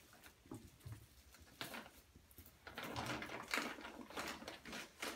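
Plastic jugs and bottles handled on a tabletop: scattered knocks and clicks, with a denser stretch of rustling and scraping about three seconds in.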